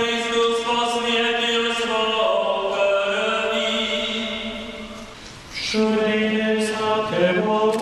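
Monks chanting a liturgical melody, holding long notes that step from pitch to pitch. A phrase dies away about five seconds in, and a new one begins half a second later.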